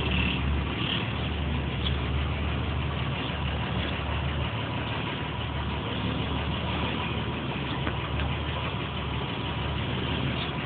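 Tour boat's engine running steadily, a low drone with a steady rushing noise over it.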